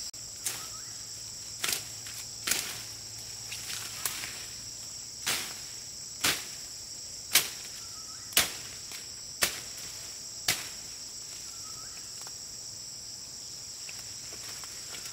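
Steady shrill drone of a forest insect chorus. Over it comes a run of about ten sharp snaps or strikes, roughly one a second, that stop about ten seconds in.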